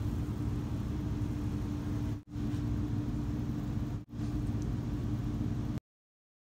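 A steady low mechanical hum over a faint hiss. It drops out twice for an instant and cuts off abruptly near the end.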